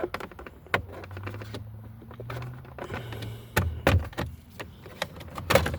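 Plastic steering-column trim on a 2021 Chevy Equinox being pried off with a plastic trim tool. A series of sharp clicks and snaps as the clips pop loose, the loudest near the end.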